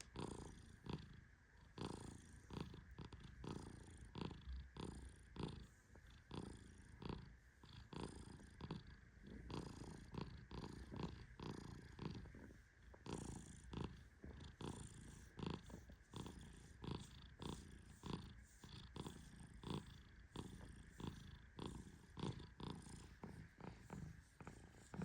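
Faint purring of a sleeping Persian cat: a rough rumble that swells and fades about once a second with its breathing.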